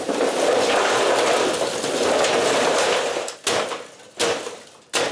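Loose material poured from a plastic bucket into a galvanized steel trash can, a steady rushing pour. About three and a half seconds in it stops, and a shovel strikes and scrapes in the can, one sharp stroke about every three quarters of a second.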